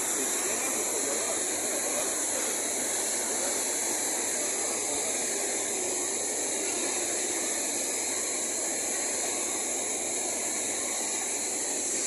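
Steady rush of falling water from the Düden waterfall, an even, unbroken roar.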